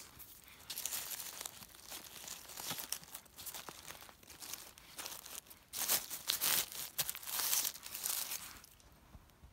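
Dry fallen leaves, pine needles and twigs rustling and crackling in irregular bursts as a hand works in the forest litter, picking a bolete mushroom and laying it down. The loudest rustling comes in the second half and dies away near the end.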